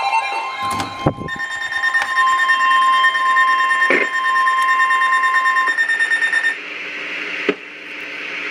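Emergency Alert System attention tone for a severe thunderstorm warning: a steady electronic tone with a second, higher tone over it, lasting about four seconds after a click. It stops about six seconds in and gives way to an even hiss of radio noise.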